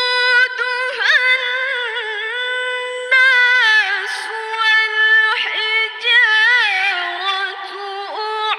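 A woman reciting the Qur'an in the melodic tilawah style. Her high voice holds long notes that waver and glide in ornamented turns, with short breaks between phrases.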